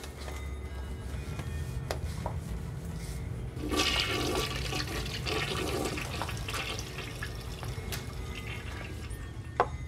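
Toilet in a public restroom stall flushing: a rush of water comes in about four seconds in, is loudest for two or three seconds, then tails off over a low rumble. A single sharp click comes near the end.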